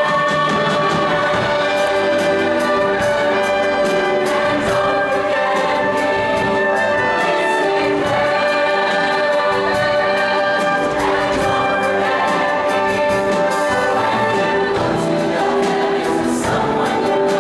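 A large mixed show choir singing in full harmony over a live band with brass.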